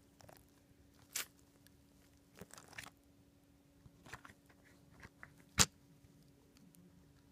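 Quiet, scattered plastic clicks and taps from a toy car wash playset being worked by hand as its water squirter sprays a toy car. One sharp click about five and a half seconds in is the loudest, over a faint steady hum.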